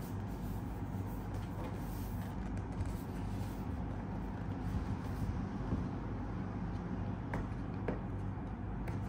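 A steady low background hum, with faint handling of a cardboard product box and two small clicks late on as a fingertip picks at the top of the box.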